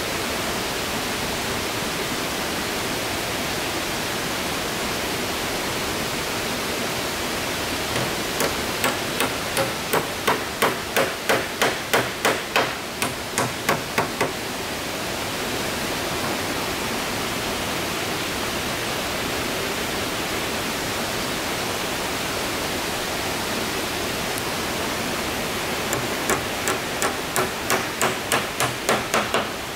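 Hammer nailing boards on a small wooden plank roof: two runs of quick, evenly spaced blows, about three a second, over a steady rushing hiss.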